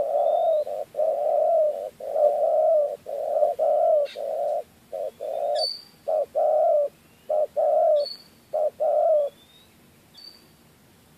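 Dove cooing in a long run of low hoots that stops about nine seconds in, with faint high chirps and short rising whistles of small birds behind.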